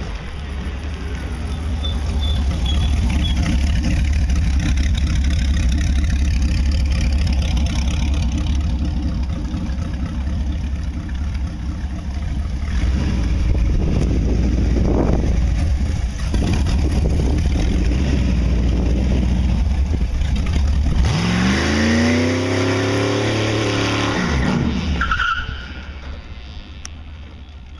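Boss Hoss motorcycle's Chevrolet V8 engine rumbling steadily as the bike rides. About three-quarters of the way through it revs hard, rising in pitch for a few seconds, during a tyre-smoking burnout, then drops away.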